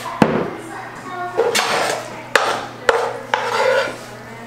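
Kitchen utensils knocking and scraping against a skillet and cookware as chicken pot pie filling is scooped out. Several sharp knocks, each followed by a short scrape.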